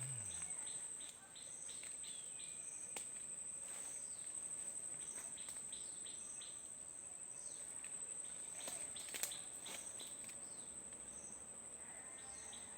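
Steady high-pitched insect trill, with a short chirp repeating about every three quarters of a second and a few faint clicks.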